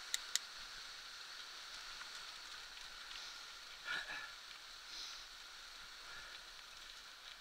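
Mountain bike rolling fast over a rough dirt path: a steady hiss of tyres on dirt and grit, with two sharp clicks right at the start and a knock about four seconds in.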